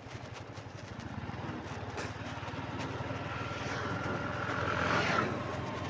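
Motorcycle engine running while the bike is ridden along a road, getting gradually louder.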